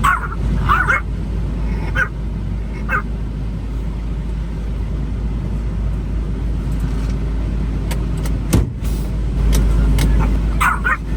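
Steady low rumble of a semi truck running, with a few brief high chirps in the first three seconds and a sharp click about eight and a half seconds in.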